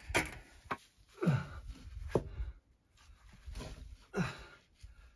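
Stone knocking and scraping against stone as a heavy flat stone is handled and set into wet mortar on top of a stone wall. There are a few sharp knocks and short grunts of effort.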